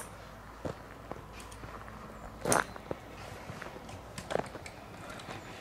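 Scattered knocks and scuffs, such as footsteps or gear being handled, with one louder scrape about two and a half seconds in.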